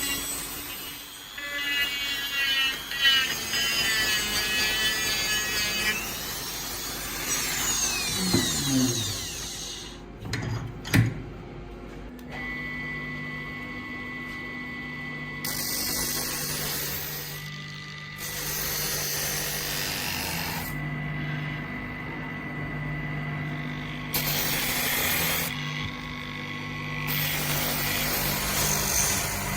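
Power tool running with a steady motor hum, broken by several stretches of high hissing noise that start and stop abruptly as the work is pressed against it, and a few sharp knocks about a third of the way in.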